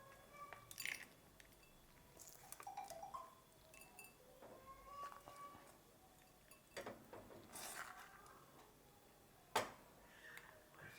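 Faint clinks and scrapes of a spoon against a cooking vessel and serving bowl as cooked pulihora is served out, with one sharper clink near the end.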